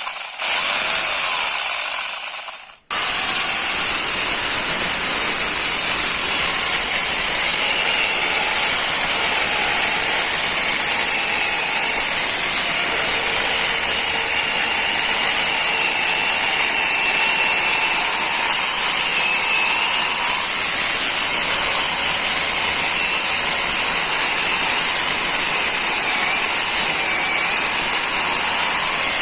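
A 4-inch hand angle grinder fitted with a chainsaw adapter, running with no load and its chain spinning smoothly around the bar. It cuts out briefly twice in the first three seconds, then runs steadily.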